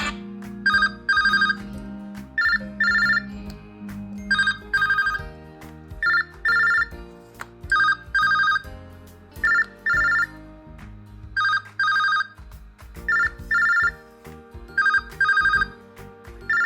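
Smartphone incoming-call ringtone: a double ring, two short bell-like rings half a second apart, repeating about every two seconds over a musical backing.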